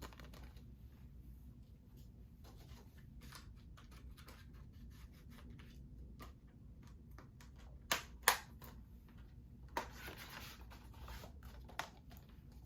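Faint handling of a Blu-ray case and its packaging: light rubbing and scattered clicks, with two sharp plastic clicks about eight seconds in and a short rustle soon after.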